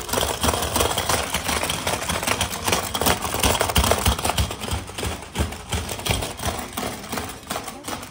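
Rapid, continuous plastic clacking of a four-player hungry frog marble game, a Hungry Hungry Hippos–style toy. Several players are hammering the levers so the frogs' heads snap out over and over. The clacks come many times a second and stop just at the end.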